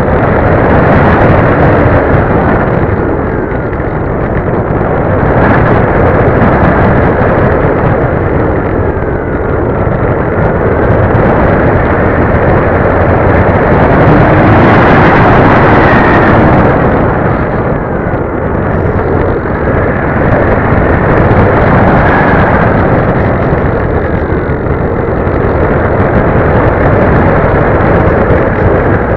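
Loud wind rush and buffeting over the onboard mini camera's microphone on a flying RC plane, swelling and easing as the plane manoeuvres and loudest about halfway through, with the plane's motor whining faintly underneath and gliding up and down in pitch.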